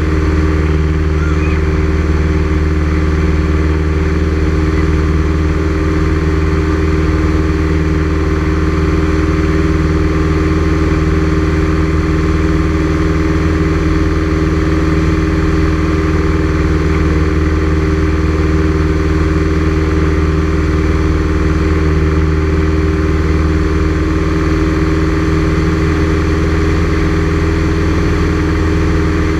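A light aircraft's engine and propeller running steadily in level flight, heard from inside the cabin.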